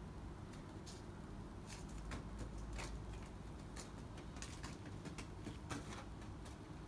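Dry fallen leaves rustling and crackling in short, irregular crackles, stirred by kittens scampering and batting a toy ball, over a low rumble.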